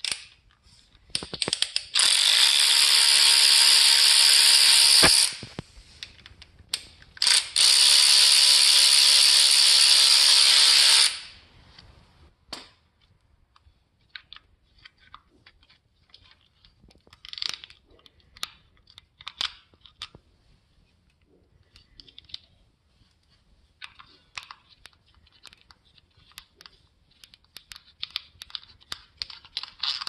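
A cordless power tool runs steadily twice, for about three and then four seconds, spinning bolts out through a socket on a long extension. Then come light scattered metal clicks and taps as bolts and tools are handled.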